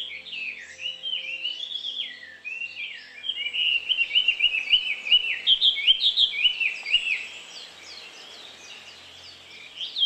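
Many small songbirds chirping together: quick, overlapping chirps that slide downward, busiest and loudest in the middle few seconds.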